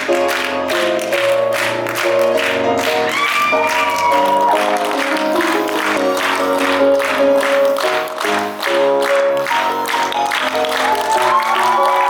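Stage music with a steady beat from a musical theatre show, with an audience clapping along.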